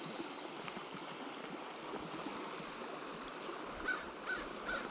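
River water flowing steadily over the riffle. Near the end a bird calls several times in short, evenly spaced notes.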